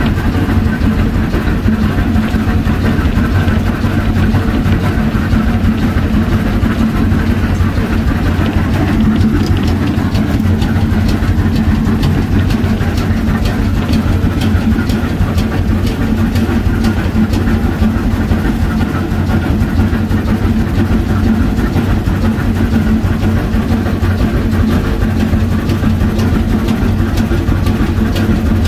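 Narrow-gauge railroad car moving along the track, a steady low rumble with continuous rattling, heard from inside the car at its open doorway.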